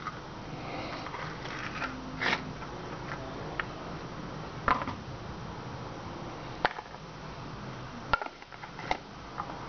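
A tablespoon scraping avocado flesh out of the skin into a plastic bowl: a few short clicks and scrapes, spaced a second or two apart.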